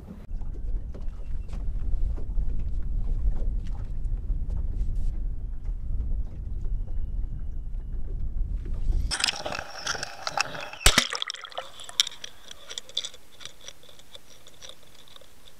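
Wind buffeting a camera microphone on an open boat, a low rumble, for about nine seconds. Then the sound changes suddenly to splashing and bubbling as an underwater camera goes into the water, with a sharp knock near eleven seconds, before settling into a steady underwater hiss.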